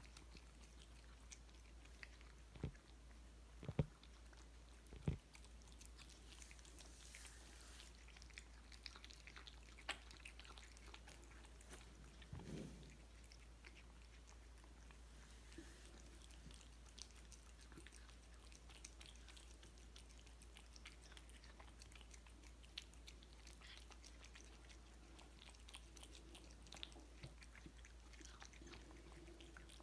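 Two cats eating wet food from stainless steel bowls: faint, irregular chewing and licking clicks, with a few louder knocks in the first five seconds.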